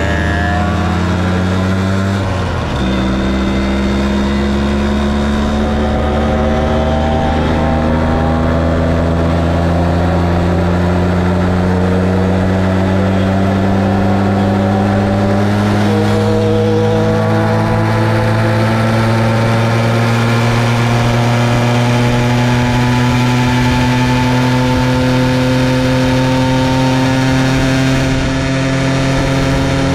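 Onboard sound of a moped engine accelerating under load. Its note drops about two and a half seconds in, as at a gear change, then climbs slowly and steadily as road speed builds.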